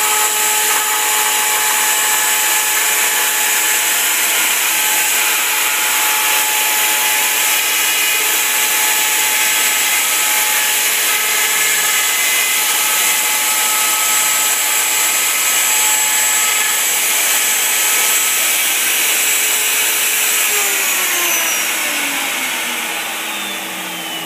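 CNC router spindle with a 1/8-inch bit cutting thin Lexan polycarbonate sheet: a steady high whine over the rush of the dust-collection vacuum. About 21 seconds in, the whine falls steadily in pitch as the spindle winds down.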